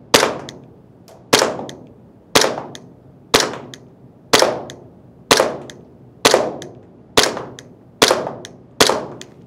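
SRC Glock 17 Gen5 MOS gas blowback airsoft pistol fired about ten times at a steady pace of roughly one shot a second, slightly quicker near the end. Each shot is a sharp crack of gas and cycling slide with a short ringing tail.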